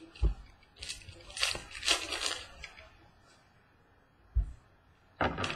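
Trading cards and their pack being handled: rustling and sliding from about one to two and a half seconds in, with light knocks on the table at the start and again near four and a half seconds.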